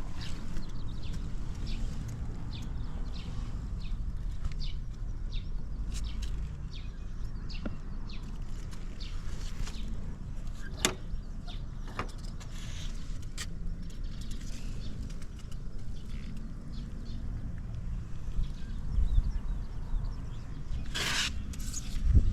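Yamaha TW200's air-cooled single-cylinder four-stroke engine running steadily through a Supertrapp down muffler, with no abnormal noises. Birds chirp over it, and a short rushing noise comes near the end.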